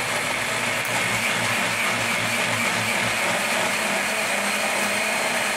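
Single-serve cup blender motor running steadily, blending a thick mix of banana, sunflower seeds and oats.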